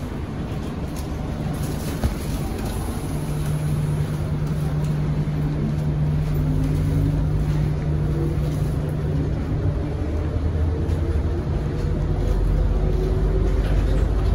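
Bombardier Innovia APM 100 people-mover car pulling away and gathering speed, heard from inside the car: a steady low drive hum, with a fainter whine that rises in pitch as it speeds up and running noise that grows louder. There is a single sharp knock about two seconds in.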